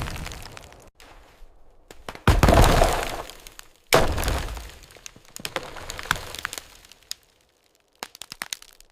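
A large tree crashing down: two heavy crashes with cracking and splintering wood, each dying away, then scattered sharp cracks near the end.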